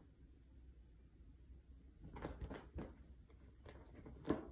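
Faint scuffing, rustling and soft thumps of a ragdoll cat tussling with a plush round cat bed on a blanket-covered bed. Quiet for the first couple of seconds, then a run of scuffs, with the loudest thump near the end.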